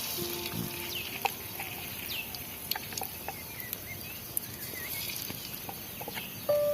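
Birds calling outdoors in short, repeated chirps, with a few scattered light clicks.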